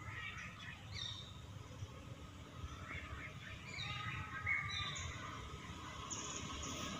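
Birds calling: scattered short, high chirps and whistles, several falling in pitch, over a steady low outdoor rumble.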